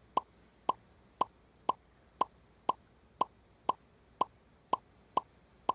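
Game-show sound effect of short, identical blips about twice a second, each one marking the next letter revealed on the quiz board.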